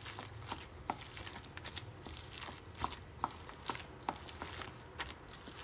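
A bare hand squeezing and mixing a coarse, damp batter of ground chana dal, chopped onion and spices in a bowl. It makes soft, irregular crumbly squishing with many small clicks.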